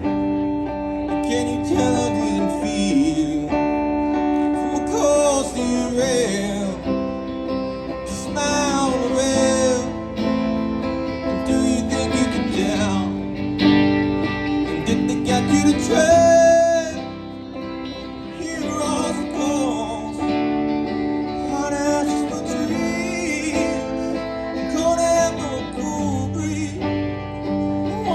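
Live duo performance of a song: a strummed guitar with a singer's voice over it.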